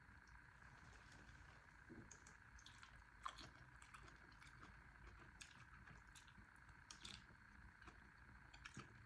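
Near silence: room tone with faint, scattered small clicks and soft squishes, the clearest about three seconds in.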